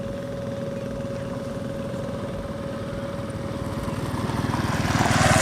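Small motorcycle engine running steadily with a rapid, even beat, growing louder near the end.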